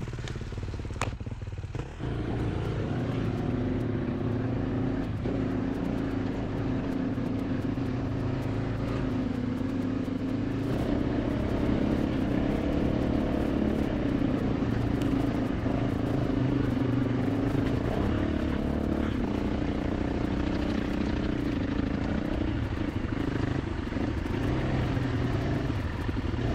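Dirt bike engine running steadily as the bike is ridden along a trail, its level stepping up about two seconds in.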